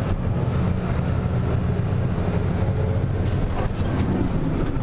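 Diesel truck engine running, heard from inside the cab as a steady low rumble.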